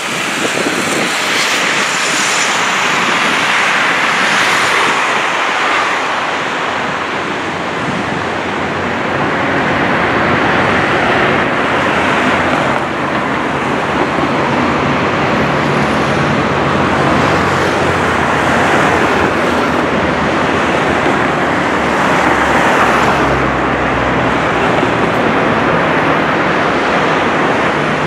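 Road traffic: cars and a motorcycle drawing nearer on a multi-lane road over a steady, loud rushing noise, with engine hum growing in the second half.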